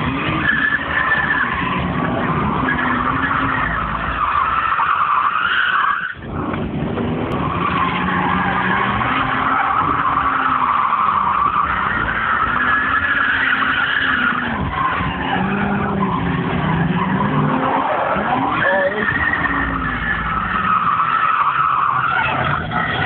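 Several drift cars sliding at once: engines revving up and down under throttle while tyres squeal steadily. The sound dips sharply for a moment about six seconds in.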